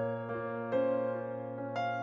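Slow instrumental background music, with sustained chords struck about once a second.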